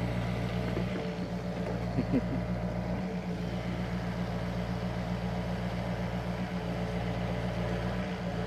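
Excavator engine running steadily at a low, even note, with a brief louder clunk or two about two seconds in.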